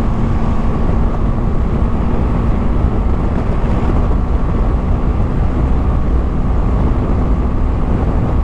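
Wind rush and the steady running of a BMW G 310 GS's single-cylinder engine at highway cruising speed, loud and unchanging.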